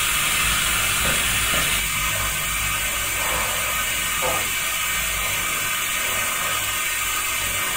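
A steady, even hiss with a few faint soft rustles.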